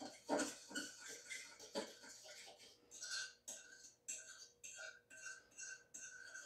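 Faint spoon stirring and scraping in a saucepan of no-bake cookie mixture on the stove. From about halfway on, a short scrape repeats about twice a second.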